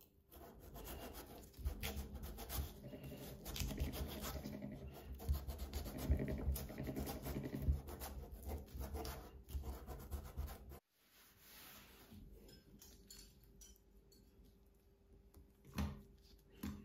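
Kitchen knife cutting and scraping through watermelon flesh along the inside of the rind, a dense run of short strokes. About ten seconds in it drops off suddenly to faint handling sounds, with a single knock near the end.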